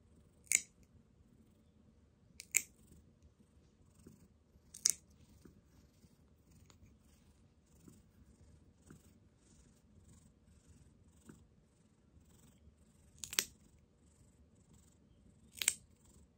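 Cat nail clipper cutting a cat's claws: five sharp snips, three in the first five seconds and two more near the end.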